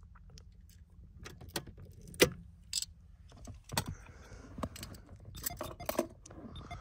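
Keys jangling amid a scatter of sharp clicks and small knocks from handling inside a car, the loudest knock about two seconds in.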